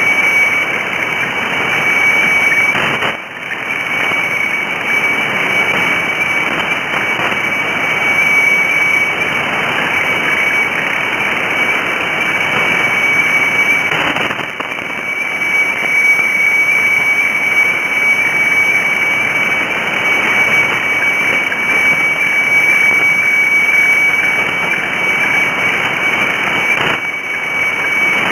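Shortwave radiofax (meteofax) transmission from Thailand's HSW64 station in Bangkok on 7395 kHz, heard through a receiver: a steady high tone over loud static hiss. The signal dips briefly about three seconds in, again around the middle, and near the end.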